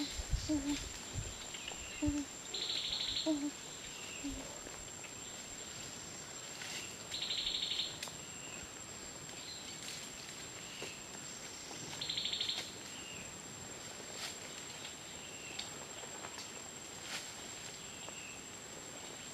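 Jungle ambience of forest insects: a steady high-pitched drone, with a short pulsing trill coming back about every four to five seconds and faint chirps between.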